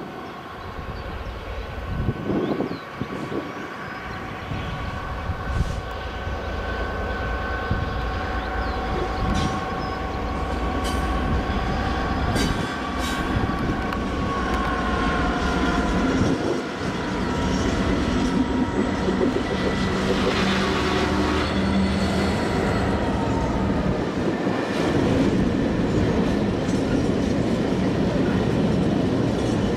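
Freightliner Class 66 diesel locomotive's two-stroke EMD engine working as it approaches and passes, hauling a train of hopper wagons, with a steady high whine that drops in pitch as it goes by. The hopper wagons follow, rumbling and clattering over the rails.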